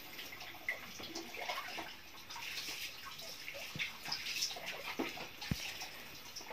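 Coconut-milk broth simmering in a wok over a wood-fired stove: a low watery bubbling hiss, with a few scattered small clicks and knocks.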